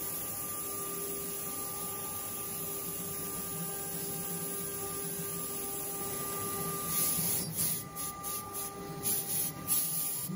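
CNC router spindle carving MDF: a steady machine whine over the hiss of the bit cutting the board. In the last few seconds the cutting noise comes in irregular louder bursts.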